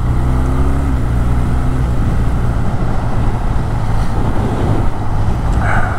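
BMW R12nineT's air/oil-cooled boxer twin running steadily at road speed, under wind and road noise.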